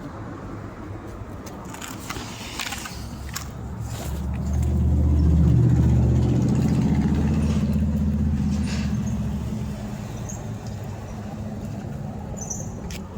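A road vehicle driving past: a low engine sound that swells about four seconds in and fades away by about ten seconds. A few faint knocks sound now and then.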